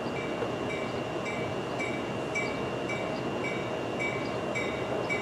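Railroad grade-crossing warning bell ringing steadily at about two strikes a second, the crossing activated for an approaching train.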